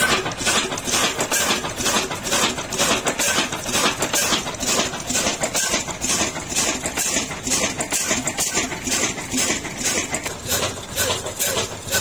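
Old Ruston Hornsby stationary diesel engine running steadily under load, driving a flour chakki through flat belts, with a rhythmic knocking beat several times a second.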